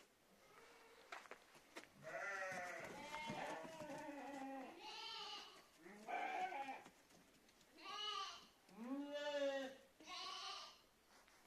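D'man sheep bleating in a pen: several calls overlap for the first few seconds, then come about four shorter separate bleats.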